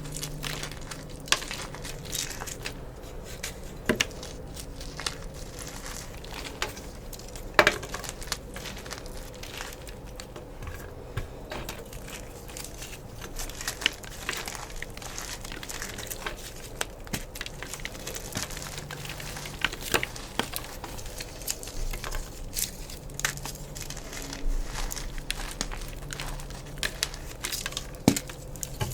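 Blocks of gym chalk being crushed and crumbled: a continuous crunching with many scattered sharp cracks, the loudest about a quarter of the way in and again near the end.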